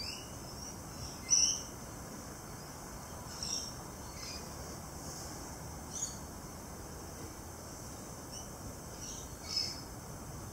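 Steady low background hiss with four short high-pitched chirps spaced a few seconds apart, the first the loudest.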